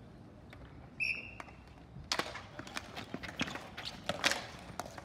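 A short referee's whistle blast about a second in, then a run of quick clacks and knocks from hockey sticks, the ball and players' shoes on a ball hockey court.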